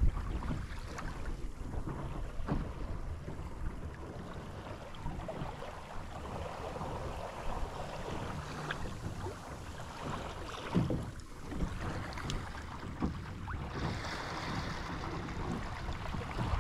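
Water splashing and lapping against the hull of a Sunfish sailboat under way, with wind buffeting the microphone and now and then a louder slap of water.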